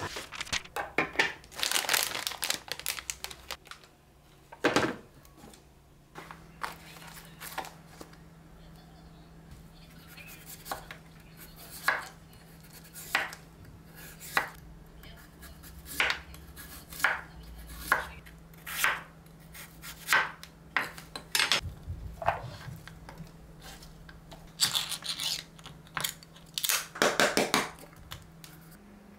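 Kitchen knife cutting a Korean radish on a wooden cutting board: separate cutting strokes about a second apart, with denser bursts of crinkling and handling noise near the start and near the end.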